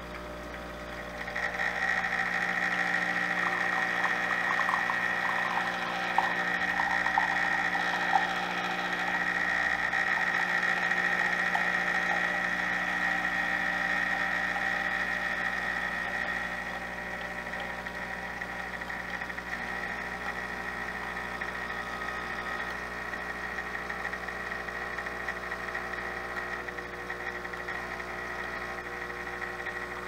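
Tchibo bean-to-cup coffee machine running as it brews into a mug: a steady mechanical hum with a high whine. It grows louder about a second in, with a couple of clicks, then drops to a quieter hum about halfway through.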